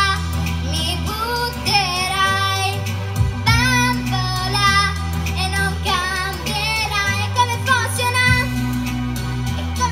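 A young girl singing into a handheld microphone over backing music with a bass line, holding some notes with vibrato.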